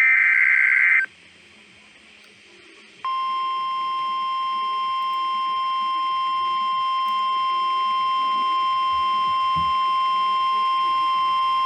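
The last of the Emergency Alert System SAME header data bursts, a one-second buzz of rapidly alternating tones that opens a new alert. After a two-second pause, the steady single-pitch alert tone of about 1050 Hz starts about three seconds in and holds unbroken, announcing a new weather warning.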